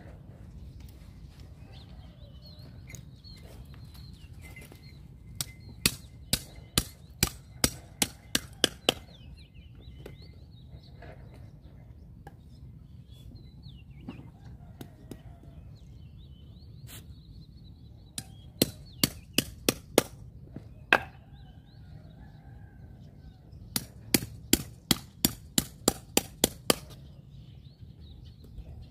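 Cleaver chopping catfish into steaks on a round wooden chopping block: three runs of sharp chops, about two or three a second, starting about five seconds in, near nineteen seconds and near twenty-four seconds.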